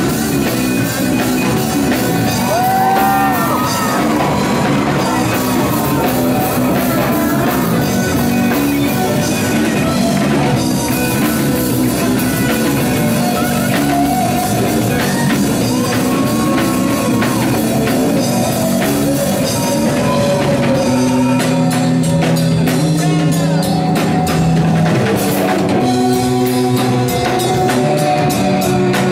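Live punk rock band playing loud and steady: distorted electric guitar, electric bass and a drum kit.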